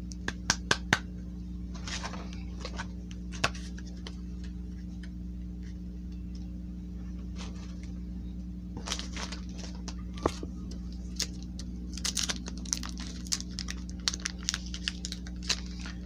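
Hands handling trading cards and a foil booster-pack wrapper: several sharp clicks and taps about half a second in, then rustling and crinkling off and on, busiest near the end. A steady low hum runs underneath.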